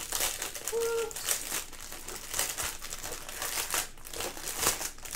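Clear plastic bag crinkling as hands open it and handle the bundle of small bags of diamond-painting drills inside, in irregular bursts of rustling.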